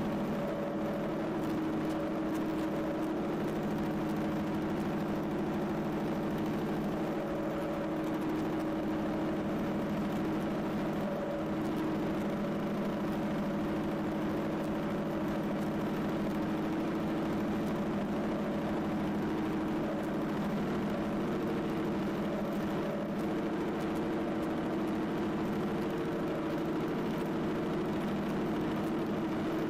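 John Deere 770 compact tractor's three-cylinder diesel engine running at a steady speed as the tractor drives along, heard close up from its hood.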